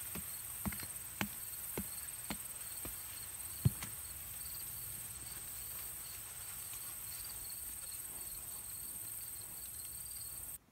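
Hatchet blade chopping into dirt: about seven dull blows roughly every half second during the first four seconds, the last the loudest. Insects trill steadily at a high pitch throughout, and everything cuts off abruptly near the end.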